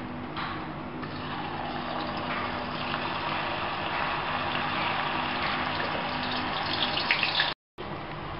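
Batter-coated chickpeas deep-frying in hot oil: a steady sizzle that swells about half a second in, with sharper crackles near the end before the sound cuts out briefly.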